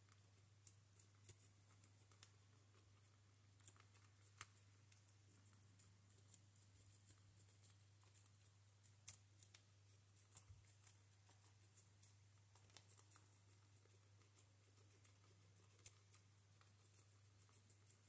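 Two guinea pigs chewing lettuce: faint, irregular crisp crunching clicks, several a second in places.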